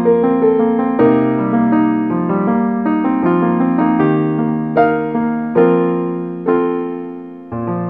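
Background piano music: a gentle melody of single notes and chords, each struck and left to fade, slowing toward the end, with a low chord struck near the end.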